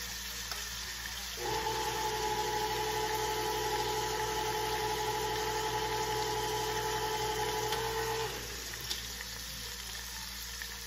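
Goat meat sizzling in oil in a pot, with a steady electric hum that starts about a second and a half in and stops about eight seconds in.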